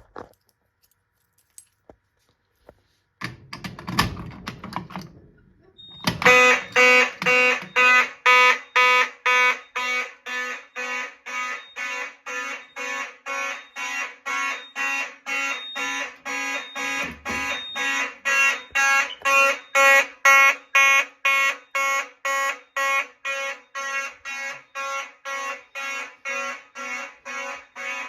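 Fire alarm sounding in a steady run of short, evenly spaced pulses, starting about six seconds in. Before it there is near silence and a brief burst of noise.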